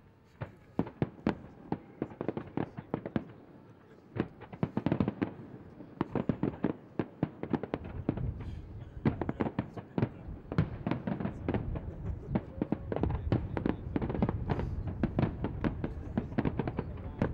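Aerial fireworks display: a rapid series of shell bursts and crackling bangs, several a second. After a short lull about four seconds in, they thicken into a dense, continuous barrage from about eight seconds on.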